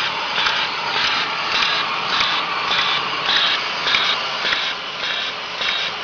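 Fully automatic hard capsule filling machine running: a steady mechanical hiss that pulses in an even rhythm a little under twice a second as the turntable indexes, with light clicks.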